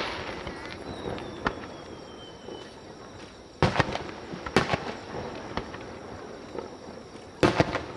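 Aerial fireworks shells bursting: a sharp bang about three and a half seconds in and another a second later, then a quick cluster of bangs near the end, each trailing off in a rolling echo.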